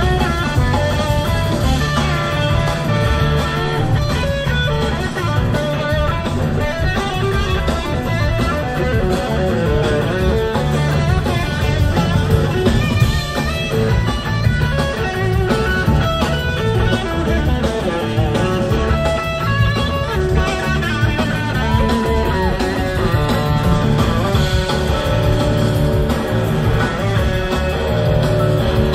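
Live blues-rock band playing an instrumental jam: electric guitar lead over drums, bass and keyboards.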